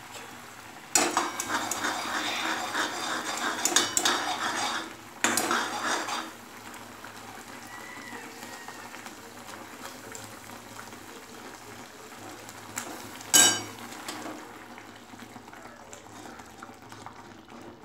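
Metal spoon stirring and scraping in a metal kadhai, clattering against the pan for several seconds as besan is mixed into the batter. After that the stirring goes quieter, with one sharp clink of spoon on pan about thirteen seconds in.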